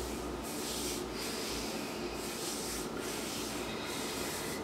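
Hands rubbing oil into the soles of bare feet: a soft, steady rubbing hiss of skin on skin that swells and dips with each stroke, a little more often than once a second.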